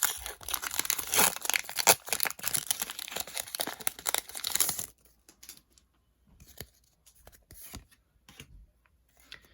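Foil booster pack wrapper crinkling and tearing open for about five seconds. It stops suddenly and is followed by faint, scattered clicks of cards being handled.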